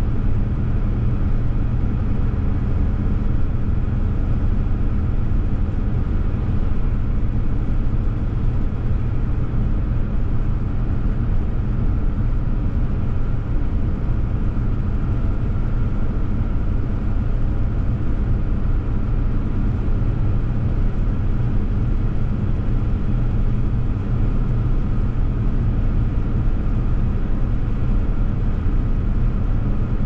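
Steady road noise and engine drone inside the cab of a Ram 3500 pickup cruising at highway speed on a slushy, snow-covered road, with no changes or distinct events.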